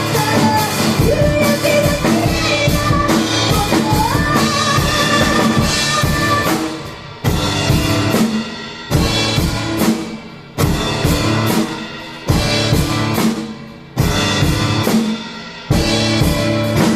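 Live rock band playing: singing over drums and instruments for the first several seconds, then the band strikes a run of big accented hits together about every second and a half to two seconds, each ringing out and fading before the next.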